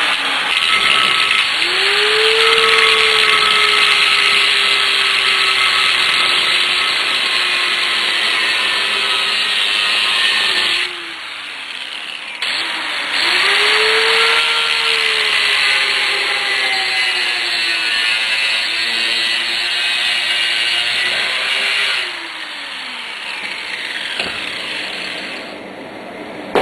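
Handheld angle grinder with a cutoff wheel cutting through a metal bar held in a vise, in two runs of about ten seconds each. The motor's whine climbs as it spins up and then sags in pitch as the wheel bites into the metal. It drops away about eleven seconds in and picks up again a second and a half later.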